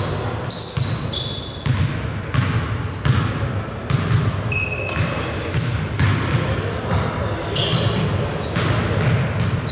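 Basketball bouncing on a hardwood gym floor while players' sneakers squeak in short, high chirps, many times over, all echoing around a large gymnasium.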